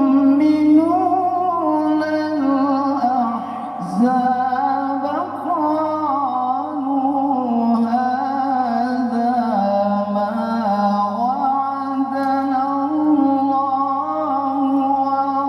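A man reciting the Quran in the melodic mujawwad style, holding long ornamented notes that waver and glide, with a short breath about four seconds in.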